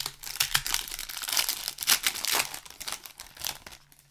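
The foil wrapper of a Magic: The Gathering set booster pack being torn open and crinkled by hand, a dense run of crackles that dies away near the end.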